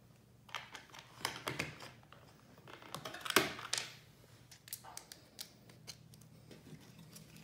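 Scattered clicks and light clatter of small hard plastic parts and hand tools being handled on a workbench, with the loudest clatter a little over three seconds in.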